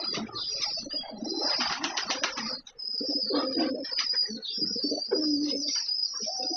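Pigeons cooing, low and repeated, over a continuous wavering high-pitched squeal, with a brief break about a third of the way in.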